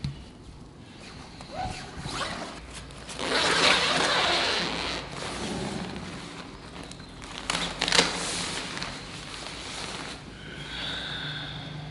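A zipper being pulled, loudest in a long stretch a few seconds in, with rustling around it and a couple of sharp clicks about eight seconds in.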